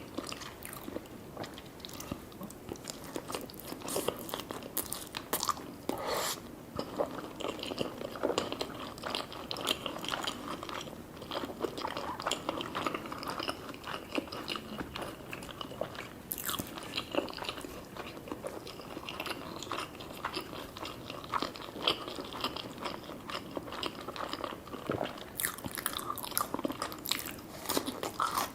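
Close-up eating sounds: biting and chewing food with wet, crunchy mouth noises and frequent small clicks.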